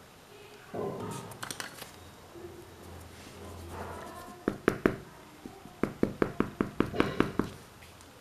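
A series of quick, sharp taps or knocks: a few near the middle, then a fast run of about ten at roughly five a second, with faint voices in the background.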